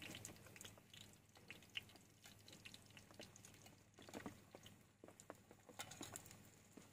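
Near silence, with faint scattered small clicks and ticks over a low steady hum.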